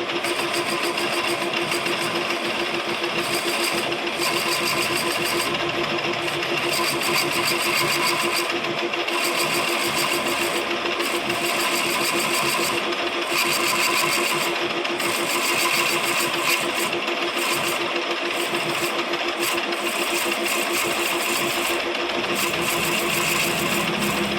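Lathe running with a steady hum, turning a workpiece, with a higher hiss of cutting that drops out briefly now and then.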